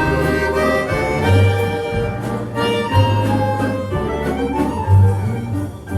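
Instrumental introduction of a song: orchestral accompaniment with bowed strings carrying the melody over a bass line.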